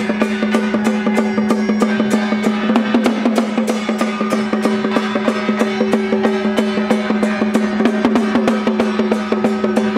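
Taiwanese temple-procession gong-and-drum troupe playing: a small drum in a carrying frame beaten with sticks, hand gongs and small cymbals keeping a fast, steady beat of about four to five strokes a second, with the gongs ringing on underneath.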